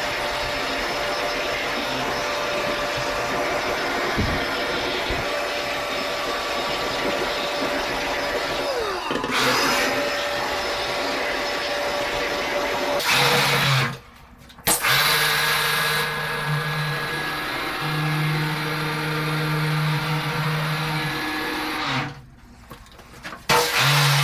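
A machine motor running steadily and loudly, cutting out briefly twice, about halfway through and again near the end.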